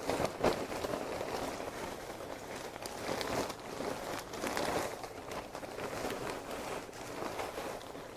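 Seasoned crackers rattling and tumbling as they are shaken in a closed container to coat them with oil and spices, in repeated swells of shaking.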